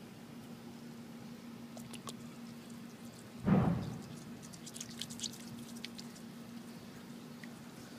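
Wet squishing of hands pressing into raw egg smeared on a carpet. About three and a half seconds in there is one louder dull thump, followed by a run of small sticky clicks. A faint steady hum runs underneath.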